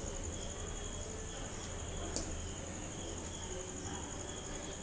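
A nest of besan noodles (jhuri bhaja) frying in hot oil in a wok, a faint steady bubbling, under a steady high insect trill. One light click about two seconds in.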